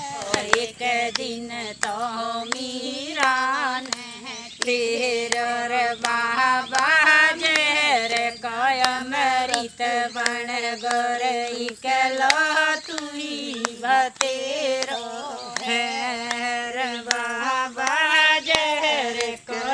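A woman singing a slow melody with long, wavering held notes, over a light regular beat.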